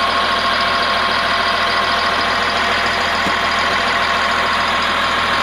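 Caterpillar 950H wheel loader's diesel engine running at a steady speed, with a steady high whine over it.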